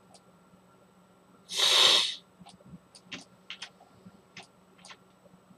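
A short, loud breath or sniff from the person at the microphone, about a second and a half in, followed by a run of about eight quick computer mouse clicks.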